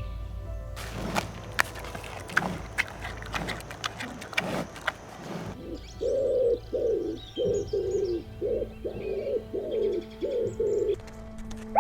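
A bird cooing: a string of about eight short, low calls in the second half, after a few seconds of scattered clicks and rustling.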